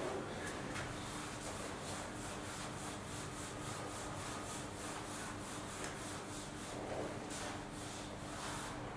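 Felt whiteboard eraser rubbing across a whiteboard in quick back-and-forth strokes, about three a second, wiping off marker writing.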